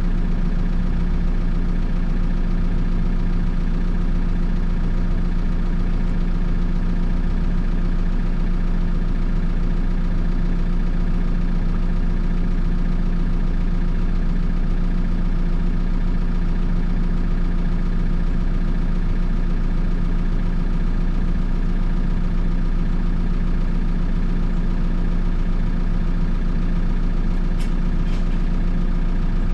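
Backhoe loader's diesel engine idling steadily, heard from inside the cab. A couple of faint clicks near the end.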